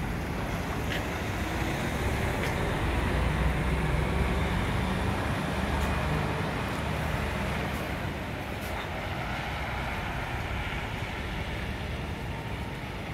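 Mitsubishi Fuso Aero Ace highway coach's diesel engine pulling away from the stop and driving off, loudest about three to five seconds in and then fading as the coach leaves.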